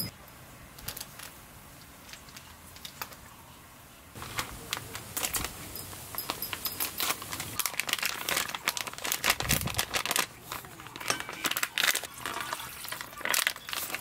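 Crinkling and crackling: a quiet first few seconds, then from about four seconds in a dense run of small sharp clicks and rustles.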